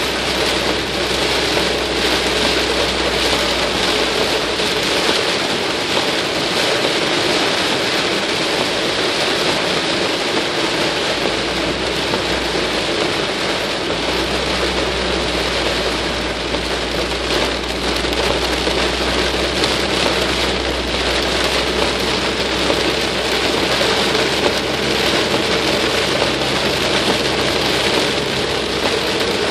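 Heavy tropical-storm rain pelting a car's roof and windshield, heard from inside the car as it drives, a loud steady hiss. Under it runs a low hum that fades for several seconds partway through.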